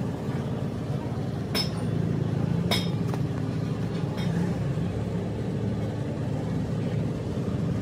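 Workshop background: a steady low mechanical rumble with a few sharp metallic clinks, the clinks coming between about one and a half and four and a half seconds in.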